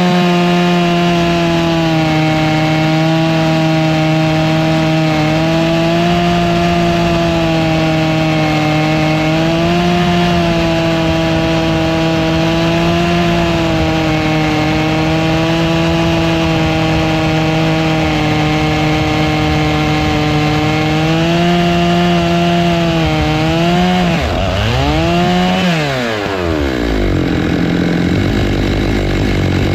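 Stihl MS 661 two-stroke chainsaw running at high revs under load, ripping lengthwise through a black walnut log on a chainsaw mill, its pitch holding steady with slight wavering. Near the end the pitch dips, swings back up and then falls away as the engine comes off full throttle.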